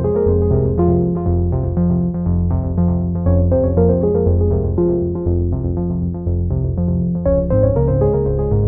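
Instrumental electronic background music played on synthesizer keys, with a repeating bass line under a melody.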